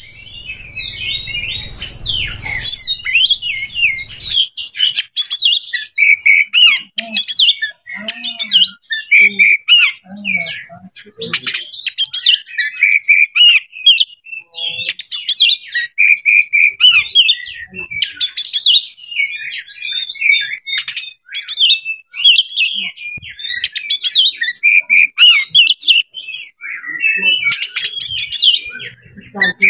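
Oriental magpie-robin singing a loud, continuous, varied song of whistled phrases, sweeps and trills, with short pauses between phrases. The song is packed with mimicked calls of other birds.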